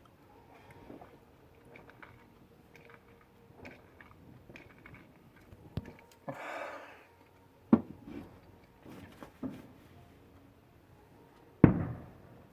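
Display fireworks bursting in the distance: four sharp bangs spaced a second or two apart, the loudest about three-quarters of a second before the end with a short echoing tail, between fainter crackles.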